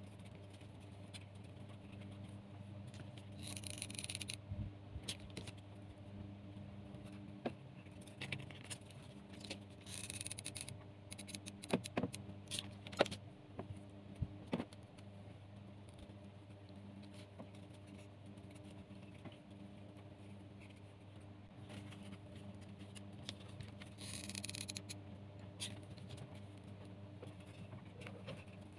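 Jute twine and cardboard being handled: soft scraping and rustling as the twine is pressed along the cardboard edge, in short bursts with a few sharp clicks about twelve seconds in, over a steady low hum.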